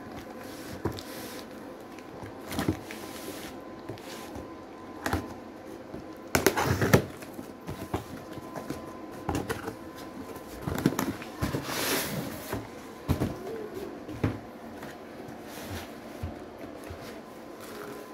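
Cardboard shipping boxes being handled and opened by hand: flaps and walls rustling and scraping, with scattered knocks of cardboard against cardboard and the floor. The loudest burst of scraping and rustling comes about six and a half seconds in.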